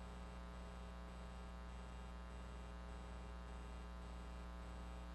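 Faint, steady electrical mains hum with a buzzy stack of overtones on the open broadcast audio line.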